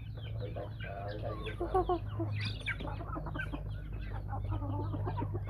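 A flock of domestic chickens clucking, many short calls overlapping, over a steady low hum.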